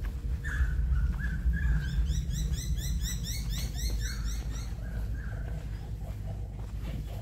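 Birds calling: several short curved calls, and a quick regular run of high rising chirps for about two and a half seconds near the middle, over a steady low rumble.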